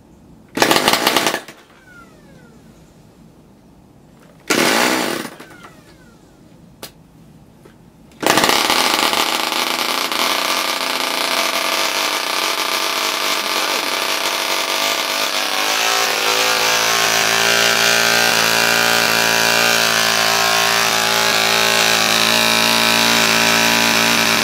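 Vintage Frog 500 spark-ignition model aero engine, a small two-stroke, spun twice briefly by a handheld electric starter, then catching about eight seconds in and running on its own with a loud, high buzz on petrol and spark ignition. Its note steadies about halfway through.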